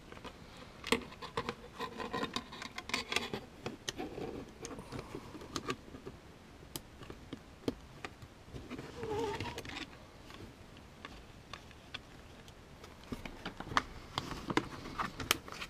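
Handling of a Celestron NexStar hand controller being reassembled: scattered sharp plastic clicks and taps as its black plastic case halves and small parts are fitted and pressed back together, over a low rustle of fingers on the case.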